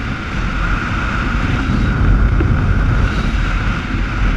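Motorcycle running steadily at road speed, its engine mixed with heavy wind buffeting on the microphone.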